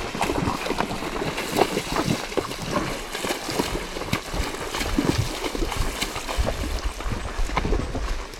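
Horses' hooves splashing as they wade through a shallow stream, an irregular run of splashes and knocks.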